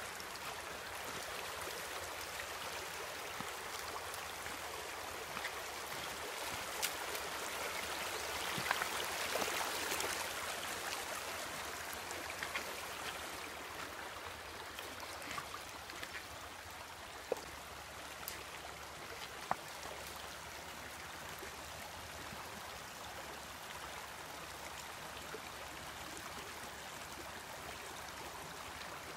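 Shallow rocky creek babbling and rippling over stones, a steady rush of water that swells a little about nine seconds in. A few sharp clicks stand out over it.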